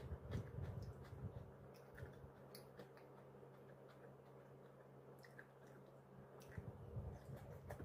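Faint close-up chewing of fried pompano, with scattered wet mouth clicks and lip smacks, a little louder near the start and again near the end.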